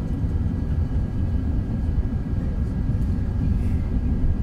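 Steady low cabin rumble of an Airbus A380 on approach, heard inside the cabin: engine and airflow noise from its Rolls-Royce Trent 900s, with a faint steady whine above it.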